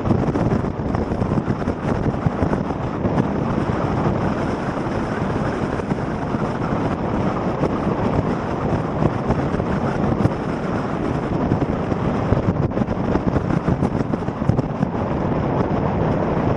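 A steady rush of wind on the microphone over the low rumble of a vehicle driving along a winding road.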